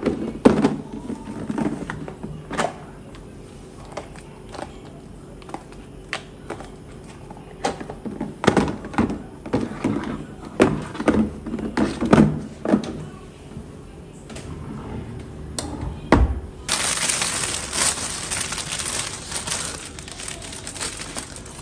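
Clear plastic food storage containers clicking and knocking together as they are moved about in a kitchen drawer, then a single low thump. After that, a thin plastic bag crinkles and rustles loudly as spring onions are pulled out of it.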